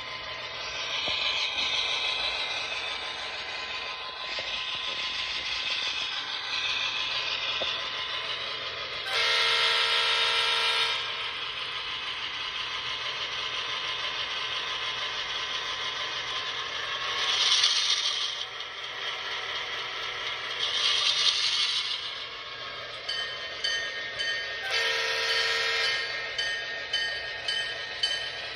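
Onboard sound system of an HO-scale MTH GP38-2 model diesel locomotive (Proto-Sound 3.0) playing a running diesel-engine sound through the model's small speaker. Two horn blasts sound, one of about two seconds about nine seconds in and a shorter one near the end, with two short hissing bursts in between and a regular ticking starting near the end.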